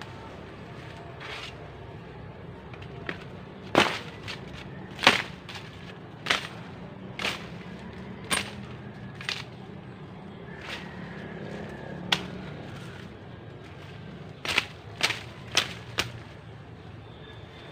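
A hand digging tool striking and chopping into forest soil to dig a planting hole for a tree seedling: about a dozen sharp, irregular strikes, with a quick run of four near the end.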